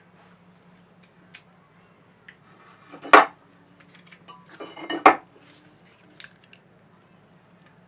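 Hard metal objects clanking and clattering as they are handled, with two louder clanks that ring briefly, about three and five seconds in, among lighter clicks, over a faint steady low hum.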